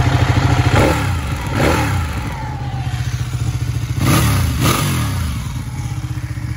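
Ducati 1199 Panigale's Superquadro L-twin engine idling with an even beat, its throttle blipped twice about a second in and twice more about four seconds in, the revs rising and falling quickly each time.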